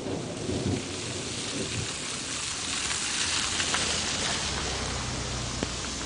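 Steady rain falling, a continuous hiss, with the tail of a thunder rumble dying away over the first couple of seconds. A low, distant rumble sets in later.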